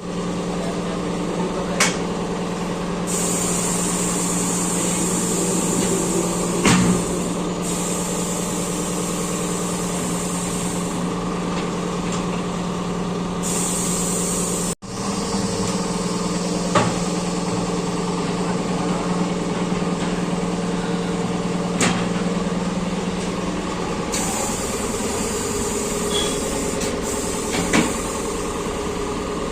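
A machine running with a steady hum, with a few sharp knocks and a high hiss that comes and goes.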